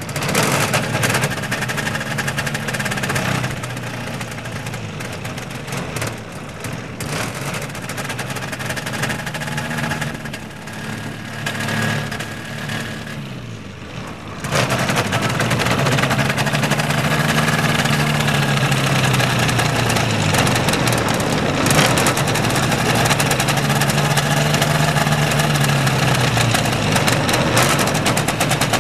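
Small air-cooled engine of a homemade ultralight airplane running with its propeller turning, the engine speed swelling up and falling back every few seconds. From about halfway through it runs louder.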